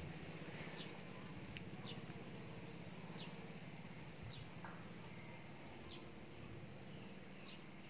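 A bird calling outdoors: a short, high, falling chirp repeated about every second and a half, over a faint steady low hum.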